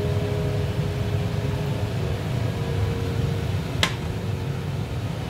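Steady low hum of a kitchen fan with a faint whine over it, and one sharp tap about four seconds in.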